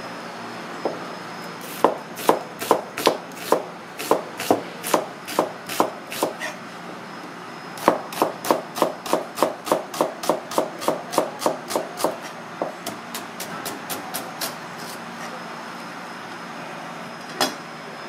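Chef's knife slicing an onion on a plastic cutting board: a run of crisp knife strokes knocking on the board, about two and a half a second. After a short pause comes a quicker run of about three a second that trails off into softer strokes. A single knock comes near the end.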